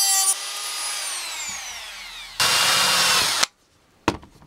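Handheld rotary tool with a cut-off disc grinding through a tab of a hardened-steel Stanley knife blade, then switched off, its whine falling in pitch as it spins down. About two and a half seconds in comes a second burst of power-tool noise lasting about a second, which cuts off suddenly, followed by a couple of clicks.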